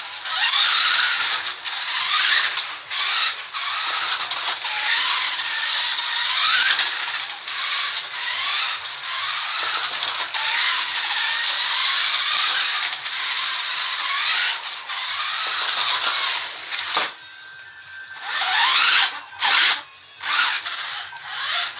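Tamiya electric RC car's motor and gears whining, the pitch rising again and again as the car speeds up, with a high hiss over it. The whine drops out briefly about three-quarters of the way through, then returns in short spurts.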